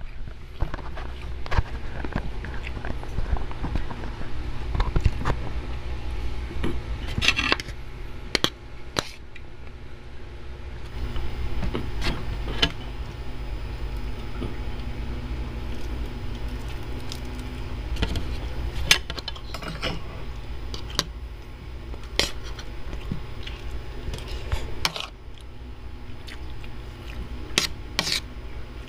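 Metal fork and spoon clinking and scraping against a ceramic plate in scattered, irregular sharp clicks, over a low steady hum.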